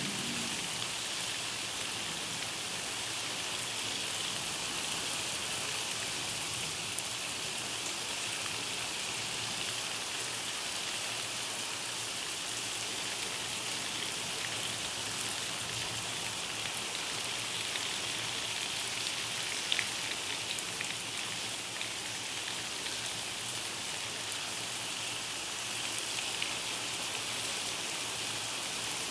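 Heavy rain falling steadily, with a few brief sharper ticks of drops here and there, the clearest about twenty seconds in.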